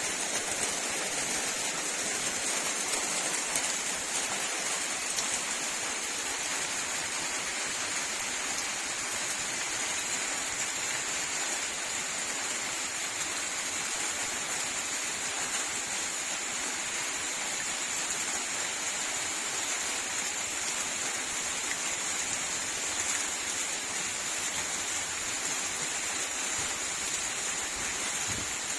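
Heavy rain falling, a steady even hiss with no letup.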